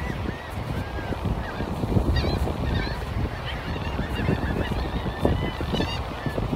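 A flock of gulls calling over and over in short, arching cries, over the low rumble of wind and surf.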